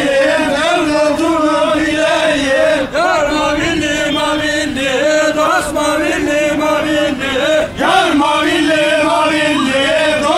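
Men singing a Sivas halay folk song, a lead voice holding long, wavering melodic notes.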